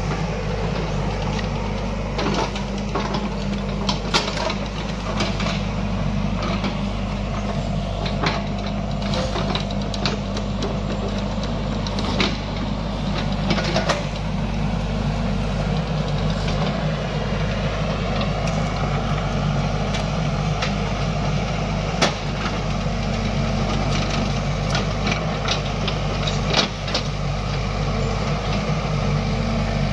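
XCMG XE55DA mini excavator's diesel engine running steadily under load, with scattered sharp cracks and knocks as the bucket tears out roots and brush.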